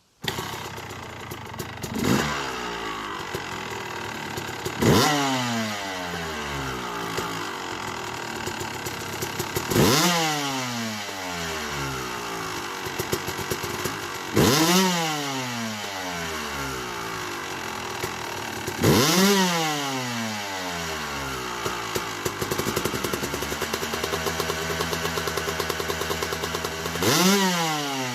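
2008 Yamaha YZ250 two-stroke single, big-bored to 285, idling and being blipped about six times, each rev rising sharply and falling back to idle, with its APT Smartcarb set 20 clicks richer during jetting.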